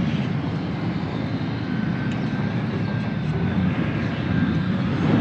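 Wind buffeting the microphone high up a sailboat mast: a steady, rumbling rush, with a faint thin whistle wavering through the middle.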